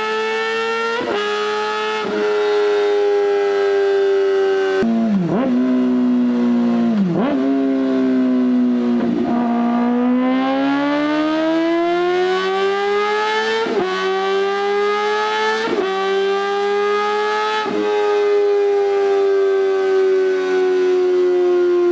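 Kawasaki ZX-4R four-cylinder engine revving high through an Austin Racing exhaust, a loud, high-pitched scream. Its pitch dips and recovers a few times, climbs steadily from about halfway, and is cut by brief breaks of a split second several times, as at gear changes.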